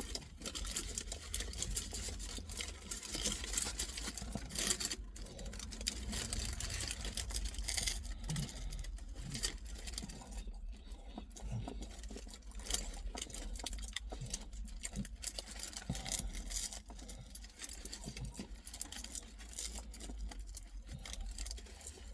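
Close-up eating sounds of someone chewing a doner kebab: irregular small clicks, crackles and rustles, over a steady low hum.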